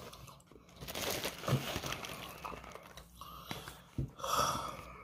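Crinkling and rustling of a foil-lined fast-food wrapper being handled, with scattered small crackles and a louder rustle a little past four seconds in.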